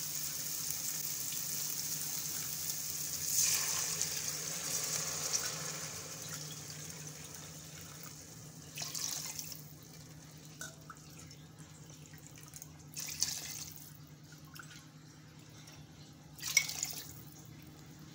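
Water poured by the bowlful into an electric rice cooker's nonstick pot of sautéed vegetables, in about four splashing pours a few seconds apart. Under them a steady hiss fades away over the first half.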